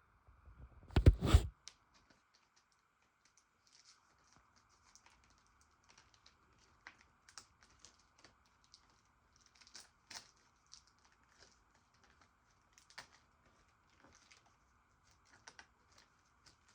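Shrink wrap being picked at and peeled off a VHS tape case by hand: scattered small clicks and crinkles, after two loud handling thumps about a second in.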